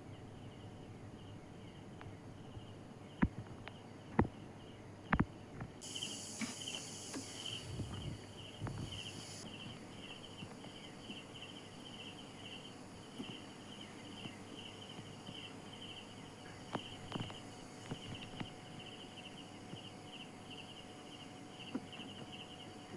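Insects chirping in a steady, evenly pulsing high trill, with a few sharp clicks in the first seconds and a short stretch of hiss soon after.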